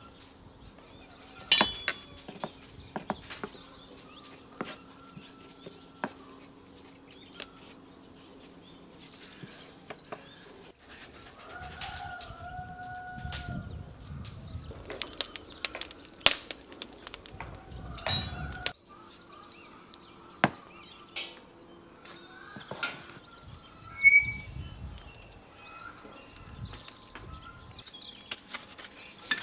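Metal spoon and knife clicking and tapping against a wooden chopping board as pastry is filled and cut, in scattered sharp knocks. Birds chirp in the background. A faint steady hum runs under the first ten seconds or so.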